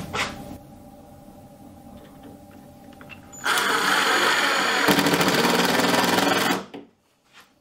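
Cordless impact driver driving a screw through a steel strap hinge into cedar: it runs for about three seconds, gets rougher about halfway through, then cuts off.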